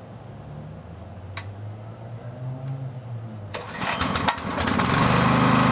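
A 212cc Honda-clone small engine is started: a rattle of clicks about three and a half seconds in, then it catches and runs steadily and loudly from about five seconds in. It now starts and keeps running with its low-oil sensor wire reconnected, so the sensor fix has worked.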